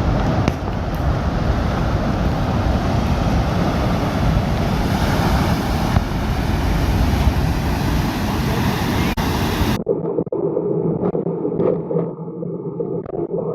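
Floodwater rushing in a loud, steady roar. About ten seconds in it cuts off abruptly, replaced by a steady low drone with scattered clicks.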